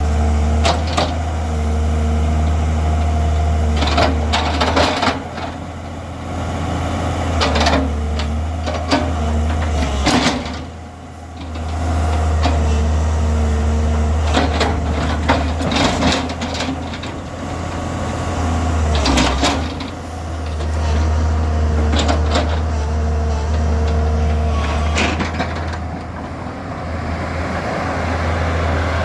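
Excavator's diesel engine running with a steady low hum and a whining tone above it. Sharp metallic clanks come every few seconds, and the engine briefly drops off about ten seconds in.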